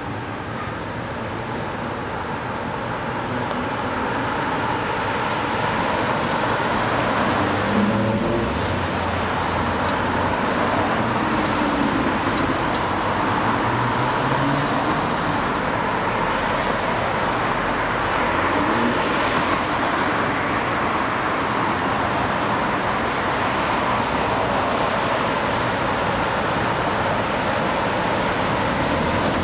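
Road traffic: cars passing on a wide street, a steady wash of engine and tyre noise that swells over the first few seconds and then holds.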